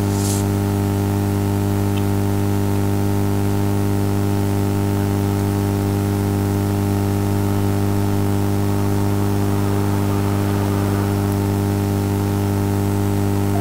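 Steady electrical hum with a row of evenly spaced overtones over a constant hiss, typical of mains hum in a recording setup. There is a brief higher-pitched noise near the start.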